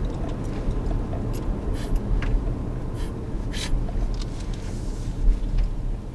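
Steady low road and engine rumble inside a moving car's cabin, with a few light clicks scattered through it.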